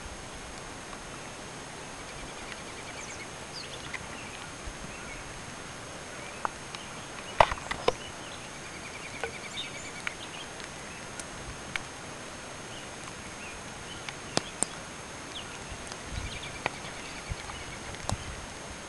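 Outdoor ambience: a steady background hiss with a bird's short trill repeating three times, several seconds apart, and a few sharp clicks scattered through.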